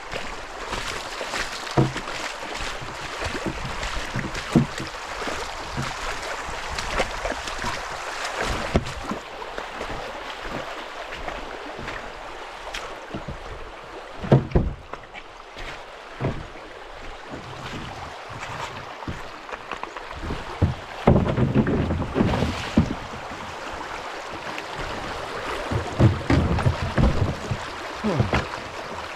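Shallow creek water rippling and rushing around a kayak, with kayak paddle strokes and scattered knocks and thumps, a cluster of them in the second half, in water too shallow for easy paddling.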